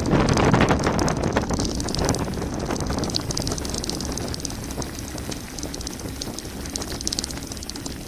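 Mountain bike descending a gravel forest road: tyres crunching over gravel and the bike rattling, with wind on the microphone. Loudest in the first couple of seconds, then easing.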